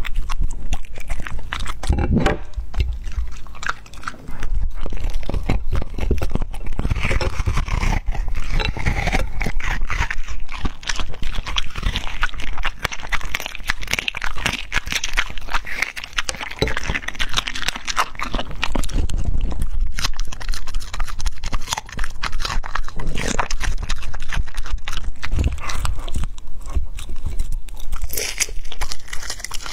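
Border Collie eating raw chicken and frozen treats: steady chewing, biting and crunching, with a brief pause about four seconds in.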